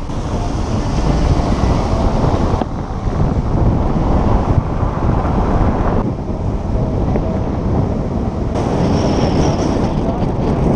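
Wind buffeting the microphone of an action camera held out of a moving car's window, over low road and engine rumble.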